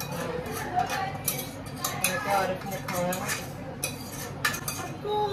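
A serving spoon scraping and clinking against a steel cooking pot as curry is spooned out into a serving dish, in a run of short, irregular knocks and scrapes.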